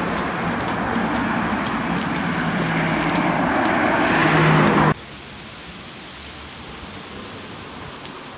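Road traffic noise from a passing car, growing louder, that cuts off abruptly about five seconds in. After it comes a much quieter outdoor background with a few faint high chirps.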